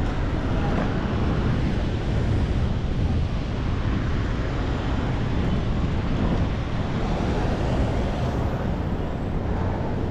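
Steady rumble of city street traffic with wind on the microphone: an even, low noise with no distinct events.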